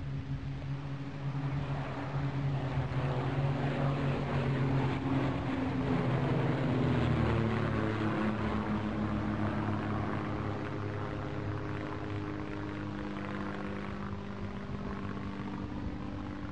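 Cessna 180 propeller planes flying over in formation. The drone of their engines and propellers builds to a peak about seven seconds in, drops in pitch as they pass overhead, then fades away.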